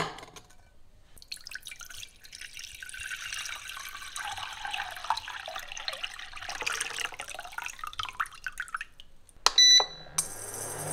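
Water poured from a jug into a stainless steel saucepan for several seconds. Near the end a short beep from an induction cooktop's button, and the cooktop starts running with a steady hum and a faint high whine.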